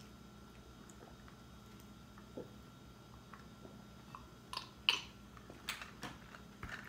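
Close-up mouth sounds of sipping through a straw and chewing: a few short smacks and clicks in the second half, the loudest about five seconds in, over a faint steady hum.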